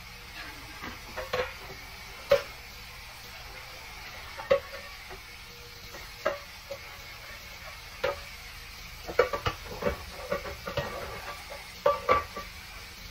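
Dishes and metal kitchenware clinking and clanking at irregular moments while being washed, with a run of quick clanks near the end, over a steady hiss.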